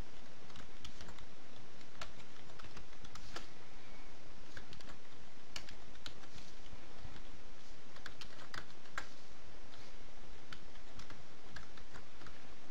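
Computer keyboard keystrokes, irregular and spaced out, as a command is typed, over a steady background hiss.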